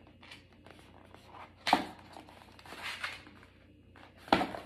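Rolled paper posters being handled, rustling and crinkling, with two sharper, louder crackles: one a bit under two seconds in and one near the end.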